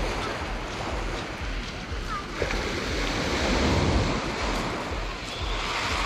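Small waves breaking and washing over a pebble beach, a steady surf hiss that swells past the middle and eases, with wind rumbling on the microphone and faint voices of people on the beach.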